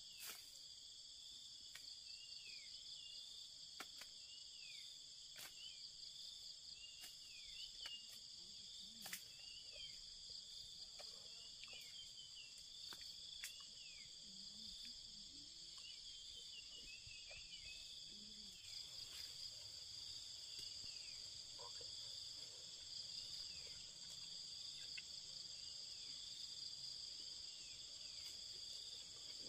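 Faint, steady high-pitched insect chorus, with short falling chirps repeating over it through roughly the first two-thirds and a few faint ticks.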